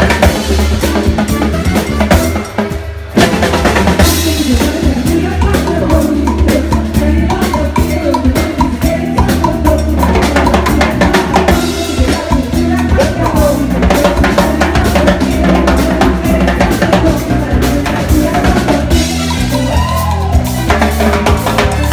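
Live band music driven by loud drums and percussion, with a drum played with sticks at the front. The music drops back for a moment between about two and three seconds in, then comes back in with a hit and carries on.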